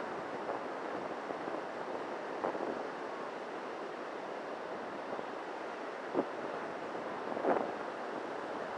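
Steady rush of surf and wind, with wind buffeting the microphone in a few brief bumps, the clearest near the end.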